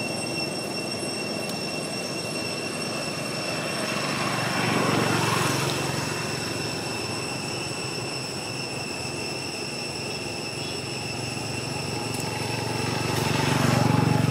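Steady, high-pitched insect drone over a low rumble, which swells about five seconds in and again near the end.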